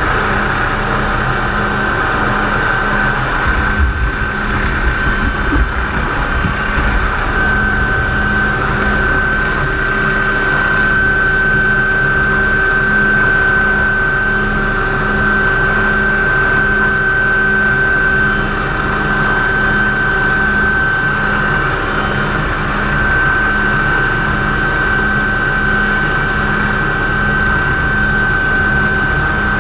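MD 500 (Hughes 369HS) turbine helicopter heard from inside its open-sided cockpit in low flight: a loud, steady mix of engine and rotor noise with a constant high whine on top and a regular pulsing beneath. Gusty low rumbles of wind come through about four to seven seconds in.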